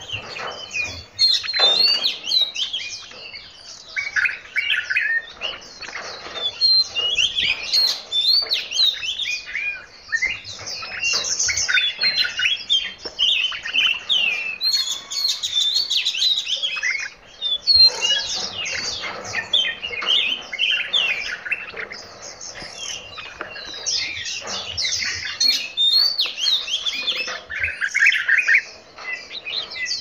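Several caged songbirds calling and singing at once, a dense, continuous mix of overlapping chirps, trills and short whistled phrases.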